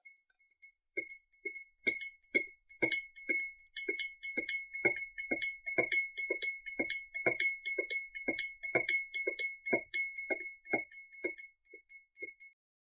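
A light tune of short, bell-like clinking notes at varying pitches, about three or four a second, over a steady high ringing tone. It starts sparse, fills in after about two seconds and thins out near the end.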